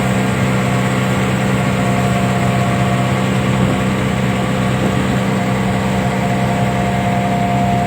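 Fishing boat's engine running steadily at constant speed, a low, even drone.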